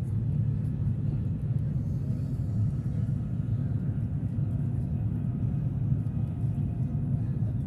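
Steady low rumble inside the passenger cabin of the Jakarta–Bandung high-speed train (KCIC400AF) running at about 340 km/h.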